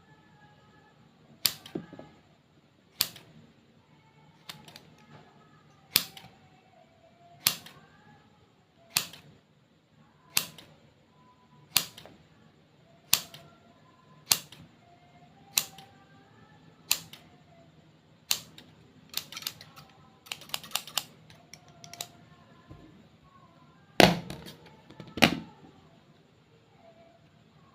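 Sharp clicks or taps about every one and a half seconds, with a quick flurry of them about twenty seconds in and two louder ones near the end.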